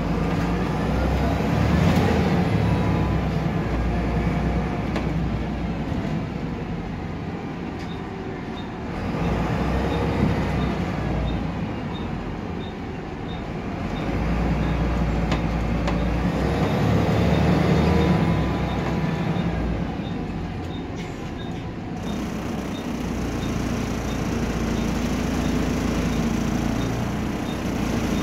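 Volvo B7RLE single-deck bus with a rear-mounted six-cylinder diesel, heard from inside the passenger cabin, pulling away and easing off several times: the engine note climbs and falls with each speed-up and slow-down. A faint, regular light ticking runs through the middle.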